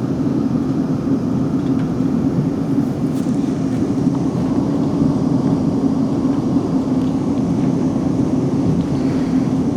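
Steady running noise heard inside a South Western Railway Class 458 electric multiple unit: wheels rumbling on the track with a constant hum from the moving train.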